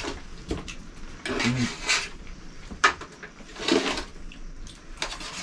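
Knives and forks scraping and clinking against plates as two people cut and eat steak, in short, irregular clinks.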